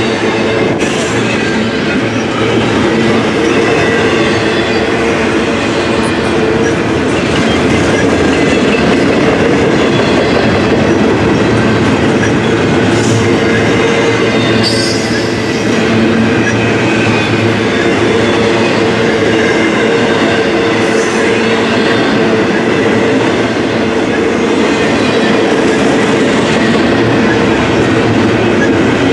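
A train rolling past at close range, its steel wheels running on the rails with a steady loud noise, some clickety-clack over the rail joints and a thin wheel squeal.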